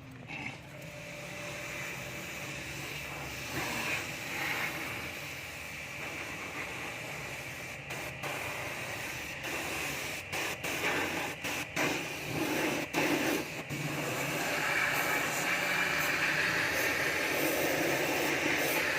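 Water spray hissing steadily as an air conditioner's parts are washed down. It is broken off briefly several times partway through and runs louder near the end.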